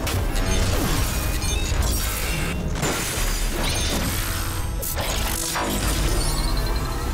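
Cartoon transformation sound effects of armour assembling onto an alien: a string of metallic clanks, crashing hits and whooshes over a music track with a steady low bass.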